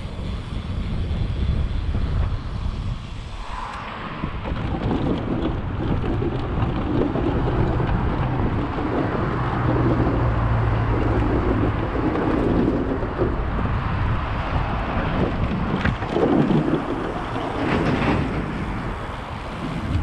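Wind rushing over the camera microphone as a BMX bike rolls along concrete paths and a plank boardwalk, with the tyres' rumble on the pavement under it. The noise steps up and gets fuller about four seconds in.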